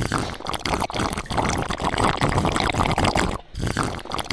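Thick bel (wood apple) sharbat poured from above into a glass jar mug, splashing and gurgling as the glass fills, with a brief break about three and a half seconds in.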